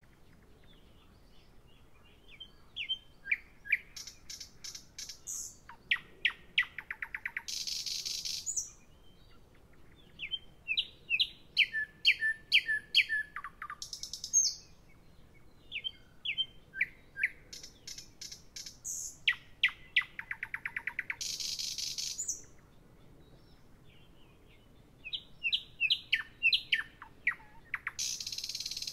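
A songbird singing: repeated song phrases of sharp, falling whistled notes that speed up into a fast trill and end in a harsh buzz, with short pauses between phrases.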